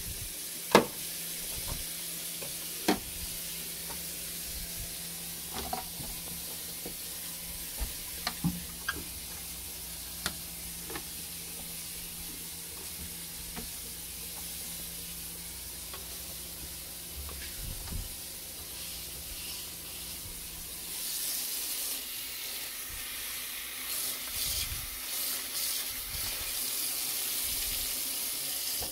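Inside of a refrigerator being wiped down with a wet cloth and clear water: scattered light knocks and clicks of handled shelves and containers over a steady hiss, then louder rubbing and wiping for the last several seconds.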